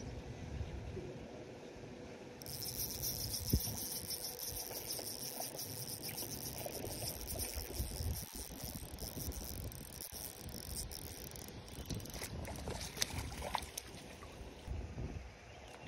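Spinning reel being cranked on a retrieve, a steady high whir that starts a few seconds in and stops suddenly after about nine seconds. Scattered splashes and clicks follow near the end as a trout is brought into a landing net.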